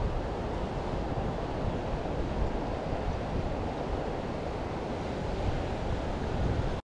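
Steady rush of a flowing river's current around the wading angler, with wind buffeting the microphone.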